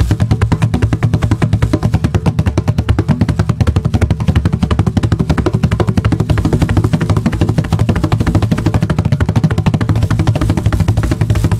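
Wooden cajon fitted with a snare rattle device, played by hand in a fast, unbroken stream of strokes: deep bass tones mixed with sharp slaps and the device's buzz, which is built to cut off short after each stroke.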